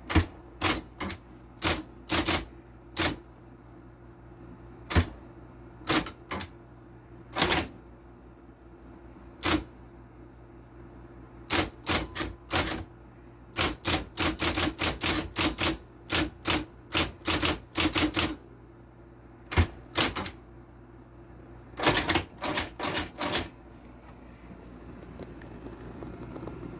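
Olympia Report de Luxe electric typewriter being typed on: sharp keystrokes, some single and some in quick runs, over a steady low hum. The typing stops about three seconds before the end, leaving only the hum.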